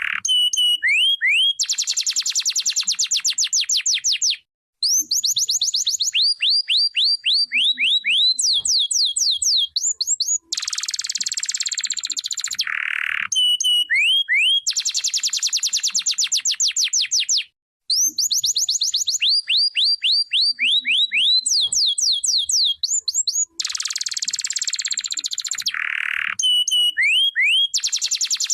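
Domestic canary singing: long, very rapid trills alternating with runs of quick rising whistled notes. The same sequence of phrases comes back about every 13 seconds.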